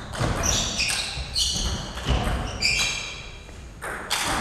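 Table tennis rally: the celluloid ball clicking sharply off bats and table, with several short high squeaks of sports shoes on the hall floor.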